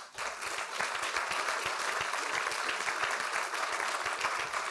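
Audience applauding, the clapping breaking out all at once and then holding at an even level.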